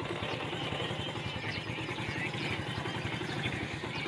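Motorcycle engine idling steadily, a fast even putter.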